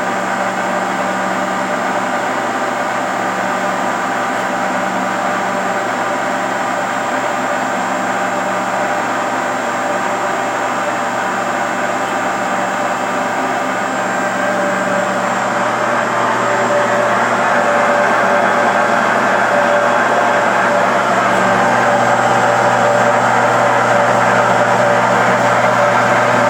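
Fryer ET-18 CNC lathe running, a steady machine hum and whine with several held tones over a hiss. It grows somewhat louder about two-thirds of the way through.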